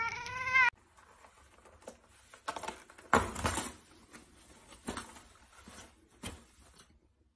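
An orange cat's meow, rising in pitch, cut off abruptly under a second in. It is followed by scattered soft rustles and scrapes of toilet paper as a black kitten paws at the hanging roll, the loudest about three seconds in.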